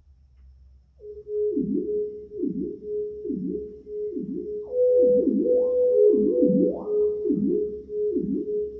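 Electronic music played back through hi-fi loudspeakers. It starts about a second in after a brief silence: a synthesizer holds a note that swoops down about once a second. About halfway through, a second, higher synth line joins and slides upward.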